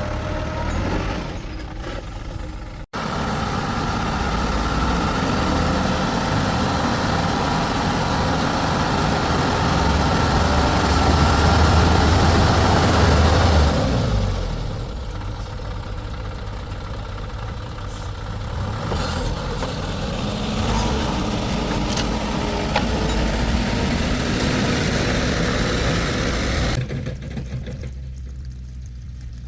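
Engine of a heavy vehicle, a truck or excavator, running. Its low rumble builds to its loudest about halfway through, then eases off, with a sudden short break about three seconds in.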